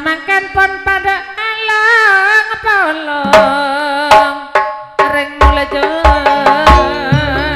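Madurese gending music from a gamelan-style ensemble: a held, wavering melody line over drum strikes, joined by heavy, deep drum beats from about five seconds in.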